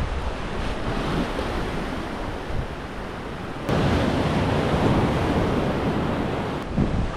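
Sea surge washing through a rocky gut, with wind buffeting the microphone. The wash jumps suddenly louder a little past halfway and drops back near the end.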